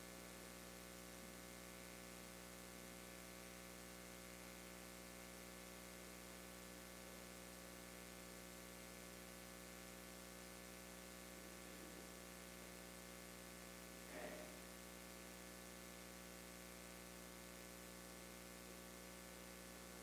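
Near silence with a steady electrical mains hum. About two-thirds of the way through comes one faint, short sound.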